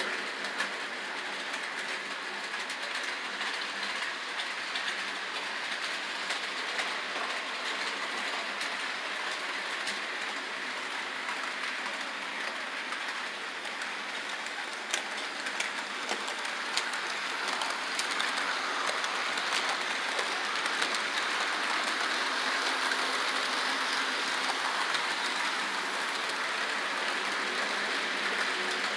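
HO scale model freight train running on the layout track: a steady rolling rattle with scattered clicks as the wheels cross the rail joints, getting louder in the last third as the cars come past.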